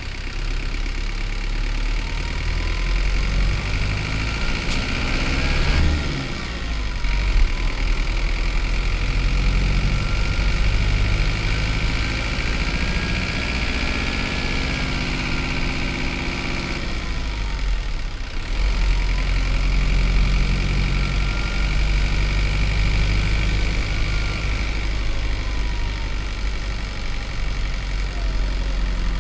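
Hino Liesse bus's J05D 4.7-litre four-cylinder diesel running under way, its pitch climbing as it pulls through the gears. There is a brief drop in sound about six seconds in and again about eighteen seconds in, where it changes gear, and a faint rising and falling whine runs over the engine.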